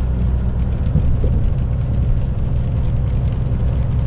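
Heavy truck's engine running steadily at cruising speed, heard from inside the cab as a low drone, with an even hiss from the tyres on the wet road.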